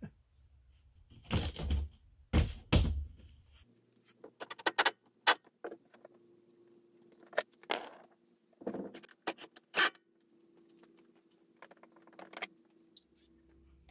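Trike body panels being handled and fastened: a few short rattles, then a run of sharp metallic clicks and knocks. A faint steady hum starts partway through.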